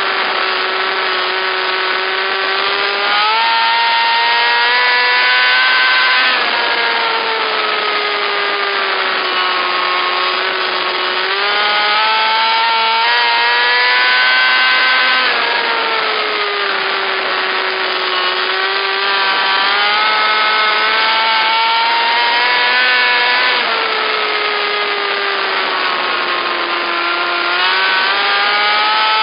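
A pack of micro sprint cars racing, their high-revving motorcycle-type engines loud and rising and falling in pitch in waves about every eight seconds as the cars accelerate and back off around the oval.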